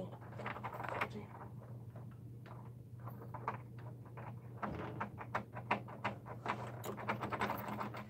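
Irregular light taps and clicks, growing busier in the second half, over a steady low hum.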